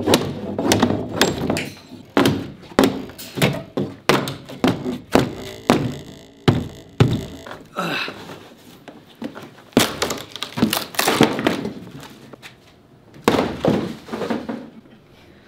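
Wooden shipping crate with stapled plywood sides being pulled apart: a run of wooden thunks and knocks, one or two a second, as the panels are worked loose and knocked about.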